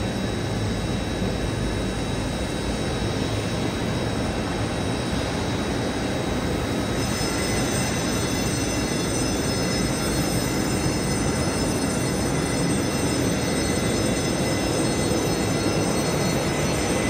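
Steady jet-engine noise from an airliner during pushback on the apron. About seven seconds in, several high, steady whining tones join it.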